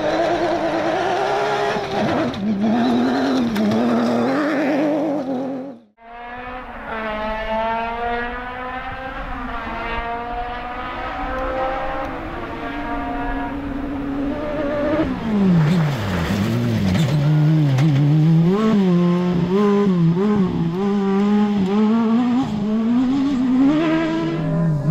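Suzuki Hayabusa-engined off-road rally car at full speed on a dirt stage, its engine revving up and down through gear changes. The sound cuts out for a moment about six seconds in, then the car's engine note falls as it passes. It picks up again in repeated rising and falling revs as it drives on.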